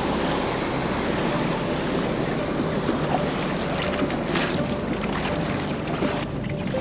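Wind rushing over the microphone and water washing along the hull of a small sailing dinghy under way, with a few sharper slaps of water against the hull around the middle.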